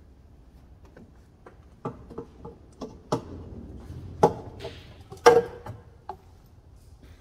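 Irregular knocks and clunks of a metal intake pipe and its hose being worked loose and lifted out of an engine bay, the two loudest about four and five seconds in.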